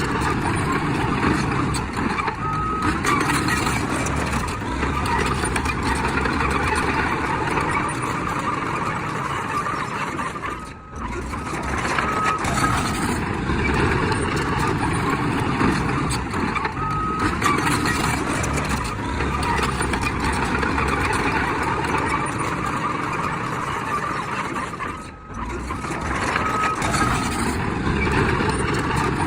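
Heavy earthmoving machinery running steadily, with short reversing-alarm beeps a few times.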